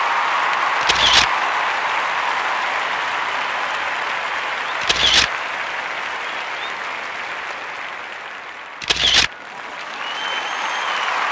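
Steady applause, with a short sharp click, like a camera shutter, three times at even four-second spacing.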